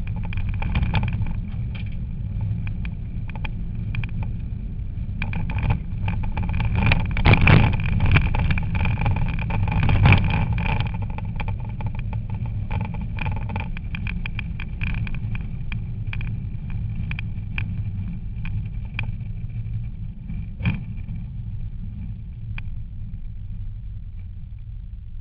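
Rally car's engine running under load, heard from inside the cabin while driving on a gravel stage, with many sharp knocks and rattles from stones and bumps hitting the car. It is loudest about seven to ten seconds in and eases off near the end.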